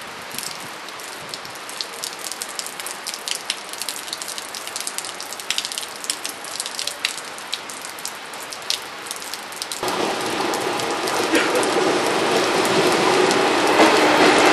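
Rain falling, with many small drop clicks. About ten seconds in, an SNCF TGV Duplex double-deck high-speed train takes over: its rolling noise and steady hum grow louder as it runs along the platform close by.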